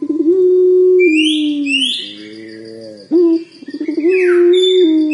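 Young puter pelung, a domestic ringneck dove, cooing twice while practising its long call: each coo opens with a quick stuttering rattle and runs into a long held note that slides down at the end. Small birds chirp with quick sweeping notes over it.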